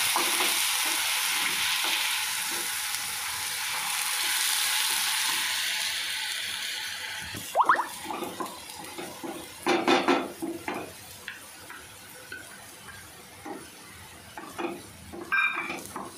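Freshly added onion and red-chilli paste sizzling in hot oil in a frying pan, strongly at first, then dying down after about seven seconds. A wooden spatula stirs and scrapes through it, with a few sharp knocks against the pan in the second half.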